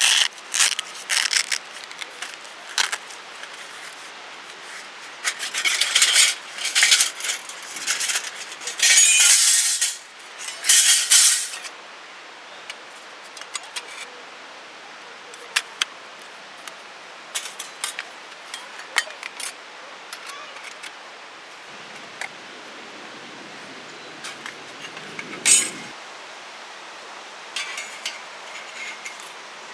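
Metal camp cookware and utensils being handled: scattered clinks and clatter, with a busier run of louder rustling and clattering in the first half and one sharp knock near the end.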